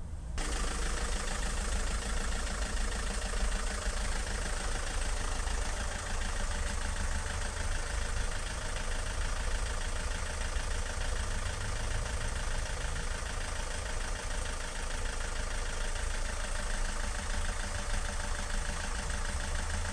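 Vauxhall Movano 2.2 DTi four-cylinder turbodiesel idling steadily. It cuts in abruptly a moment after the start.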